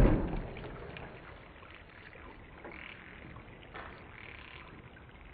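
Faint wet fizzing and crumbling of a water-soaked gem-dig brick breaking apart, with a few soft, small sounds. The tail of a sharp knock fades away in the first second.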